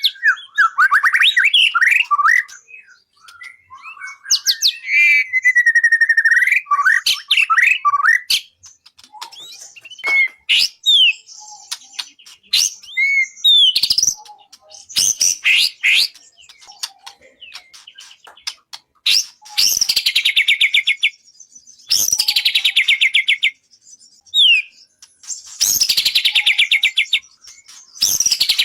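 Songbird singing: varied whistled phrases for the first eight seconds, then short separate notes, and in the second half four rapid trills, each falling in pitch, about two seconds apart.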